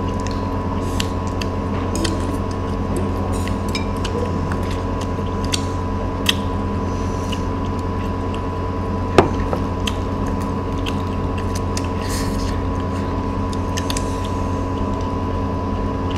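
A steady machine hum with a high whine in it, under light scattered clicks and taps of chopsticks against plates and quiet eating sounds. One sharper click comes about nine seconds in.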